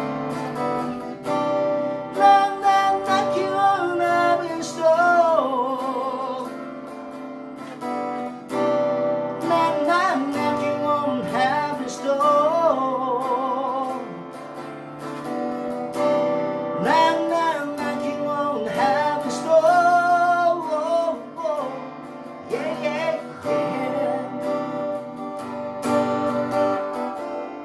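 A man singing the opening of a song in phrases with held, wavering notes, accompanying himself by strumming a Yamaha SLG200S silent guitar.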